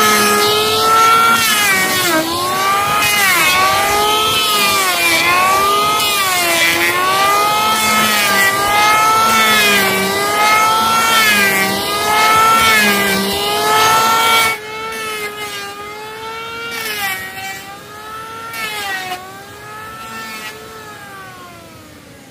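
Corded electric hand planer running and cutting across a rough-sawn wooden board. Its high motor whine sags in pitch each time the blades bite on a pass and rises again between passes, about every second and a half. It drops in level about two-thirds through and fades near the end.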